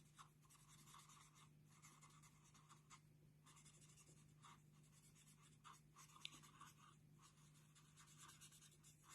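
Very faint, scattered strokes of a brush-tip marker on paper, colouring and blending a lighter shade over a darker one, over a faint low steady hum.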